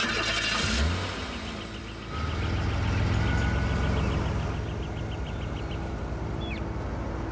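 A car engine running, its low hum growing louder about two seconds in as the car pulls away.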